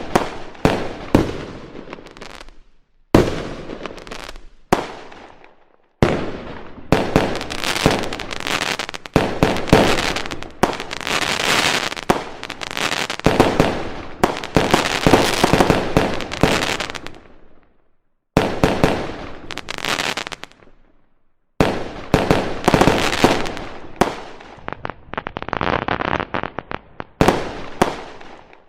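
Fireworks going off: sharp bangs trailed by crackling that fades, in several bursts separated by short silences, with a long stretch of dense crackling and bangs in the middle.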